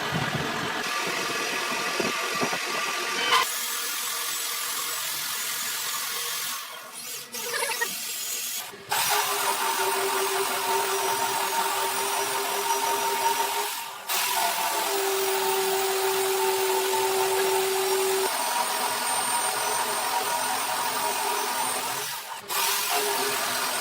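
Metal lathe running as it drills and cuts metal. The sound changes abruptly several times, and a steady whine is held for several seconds in the middle.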